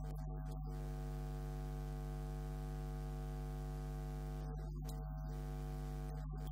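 Steady electrical mains hum with a stack of overtones, with no speech audible over it; the faint hiss above the hum drops out briefly a few times.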